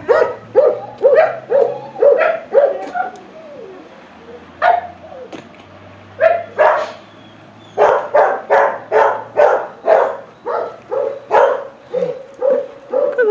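A dog barking repeatedly, about two barks a second, with a lull of a few seconds in the middle before the barking picks up again.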